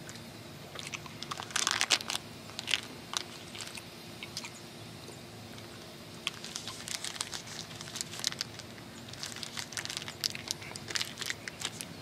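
Chocolate bar wrapper crinkling and rustling in the hands, in two bursts of short crackles, the second longer.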